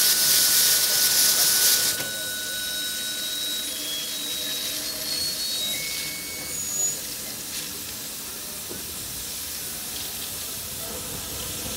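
Steam hissing loudly out around the cylinders of a 1936 Henschel Preller narrow-gauge steam locomotive. The hiss drops to a quieter, steady hiss about two seconds in.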